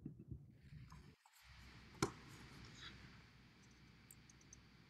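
Near silence: faint room tone over a video call, with one short click about two seconds in.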